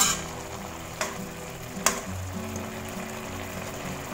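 Spiced sauce with green beans and tomato simmering and sizzling in a wok while a slotted spatula stirs and scrapes through it, with a few sharp knocks of the spatula against the pan, the loudest a little before the middle.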